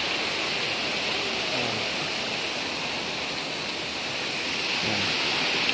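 Stream water rushing steadily over rocks in a small cascade.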